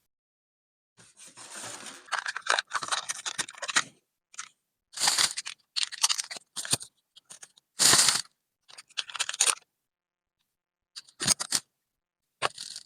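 Close-miked eating of sushi rolls: crunching and chewing in short, irregular bursts separated by silent gaps.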